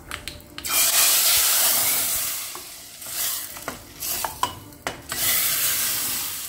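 Hot tempering oil with curry leaves, mustard seeds and dried red chillies poured from a small tadka ladle into sambar, sizzling loudly about a second in and fading over the next two seconds. The ladle then stirs the sambar in the pressure cooker, with metal clinks and shorter sizzles.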